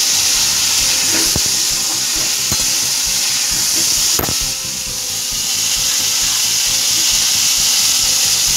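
Pointed gourd (potol) pieces frying in hot mustard oil over a high flame: a steady sizzling hiss, with a few sharp clicks, the loudest about four seconds in.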